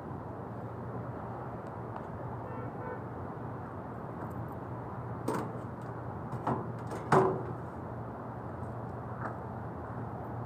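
Steady background hum and rush, broken by a few sharp clicks and knocks about five to seven seconds in, the last the loudest, from hand work on the wiring of an air-conditioner outdoor unit.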